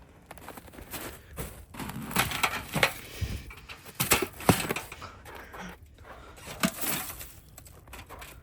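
Ice-crusted snow and ice crunching and crackling in several uneven bursts: about two seconds in, around four seconds, and again near seven seconds.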